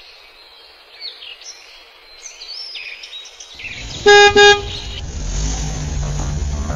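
A car horn gives two short toots about four seconds in; it is the loudest sound. Before it come faint high chirps. After it, background music with a low bass comes in and builds.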